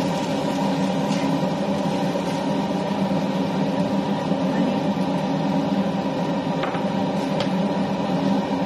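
A steady droning hum, with a few faint scrapes of a spatula against a stainless-steel pan as sticky rice is stirred.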